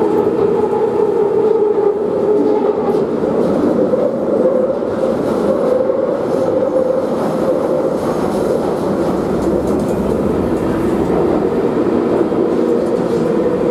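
London Underground Northern line train, 1995 stock, running through a tube tunnel, heard from inside the carriage: a steady, loud rumble of wheels on rail with a held humming tone.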